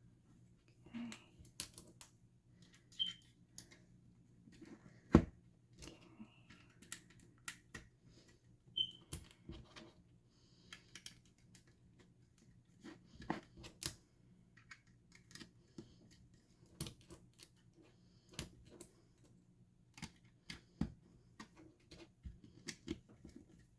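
Small plastic building bricks clicking and snapping together as pieces are pressed onto a model, in irregular clicks with one louder snap about five seconds in.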